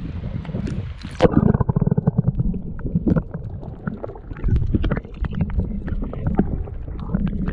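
An action camera is dipped into the sea. About a second in, the sound turns suddenly muffled as the microphone goes underwater, becoming a low gurgling and sloshing of water against the camera housing, with many small knocks.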